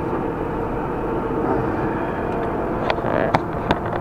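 Truck engine and road noise heard inside the cab while driving slowly: a steady low hum. A few sharp clicks or rattles come in near the end.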